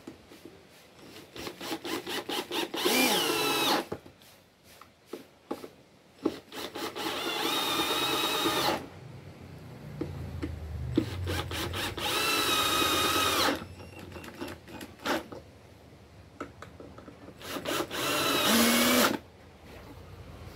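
Cordless drill-driver driving screws into pine boards: four separate runs of the motor whine, some led in by a few short trigger pulses, with clicks and knocks of handling between them.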